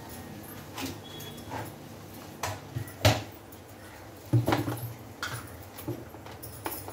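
Steel spatula scraping and knocking against a steel kadhai while poppy and sesame seeds are stirred and roasted in ghee. The scrapes come irregularly, the loudest about three seconds in and again about a second and a half later.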